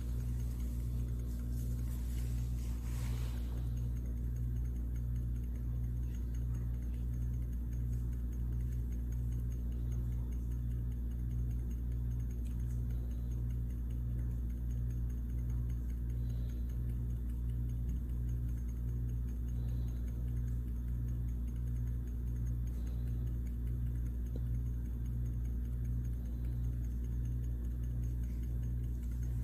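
Steady low machine hum that pulses evenly about twice a second, with faint soft blips every few seconds.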